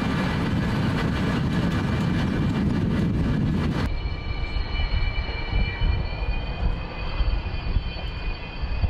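Jet aircraft noise on an airfield. For the first four seconds there is a steady low noise. After a cut, a taxiing Su-30SM fighter's turbofan engines give a steady high whine of several tones over a lower rumble.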